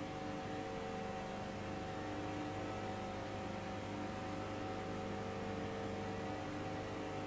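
Quiet, steady electronic drone of several held tones, some fading in and out, over a low hum and hiss.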